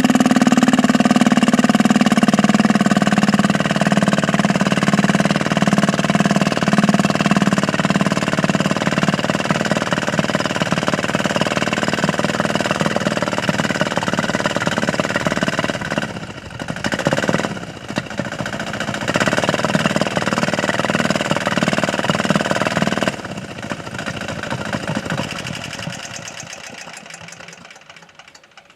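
Small 198 cc single-cylinder diesel engine running steadily under load, bogging sharply about two-thirds of the way in, then recovering. Near the end it runs down and stops.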